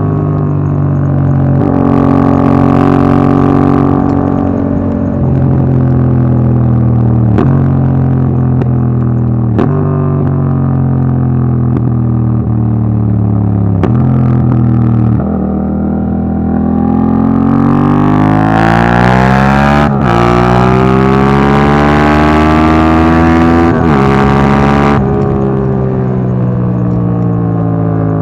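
Yamaha MT-07's parallel-twin engine through an Akrapovic Racing Line exhaust with its dB killer fitted, ridden through the gears: the engine note repeatedly drops and steps as the throttle is rolled on and off. About halfway through it revs up hard in one long rising pull, then breaks sharply twice in quick gear changes before settling back.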